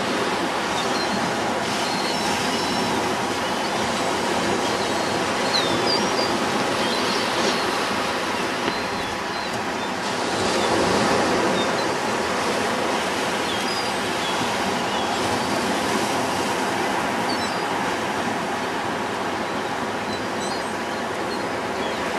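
Ocean surf breaking and washing up the sand, a steady rushing that swells about ten seconds in. Faint, high, short bird calls come through it now and then.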